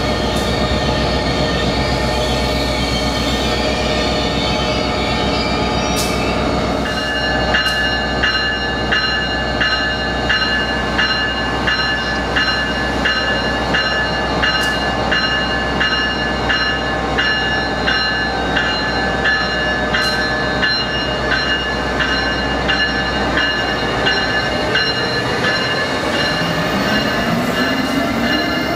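Electric locomotive's bell ringing repeatedly at an even pace from about a quarter of the way in, over the rumble and hum of electric trains at the platform. Near the end, the whine of the Amtrak ACS-64's traction motors rises in pitch as it starts to pull out.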